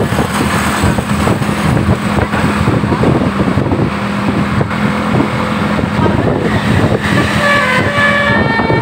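Tour bus with a multi-tone 'telolet' air horn. A steady low drone sounds over loud, dense vehicle noise, then a run of short, stepped horn notes plays near the end.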